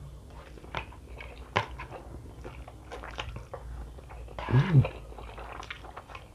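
Close-miked eating of fried instant noodles: wet chewing and slurping as noodle strands are drawn in from chopsticks, with many small clicking mouth noises. One louder mouth sound stands out about four and a half seconds in.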